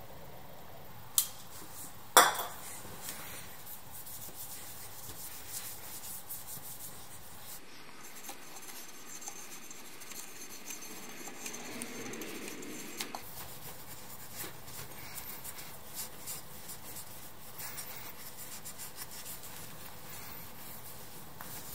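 Cloth wiping and rubbing over a motorcycle's engine parts and chrome, a soft scratchy rubbing with small ticks and taps. A light click about a second in is followed by a louder sharp knock.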